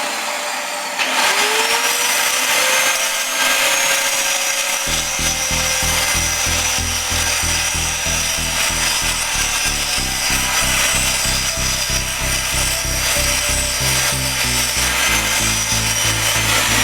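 Angle grinder spinning up to speed and running steadily under load, grinding metal, then starting to spin down right at the end. From about five seconds in, music with a steady beat and a bass line plays under it.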